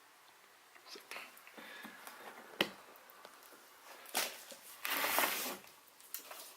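Handling noises as a person moves through a cluttered room: scattered light clicks, one sharp knock about two and a half seconds in, and a louder rustling crinkle about five seconds in.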